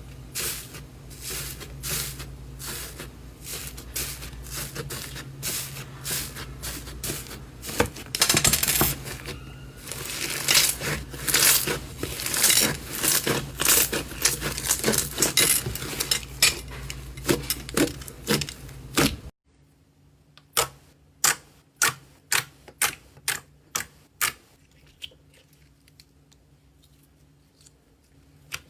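Hands squeezing and pressing slime, making rapid popping and crackling clicks as air pockets burst. The sound cuts off abruptly about two-thirds of the way in. A short run of separate, quieter pops follows, about three a second.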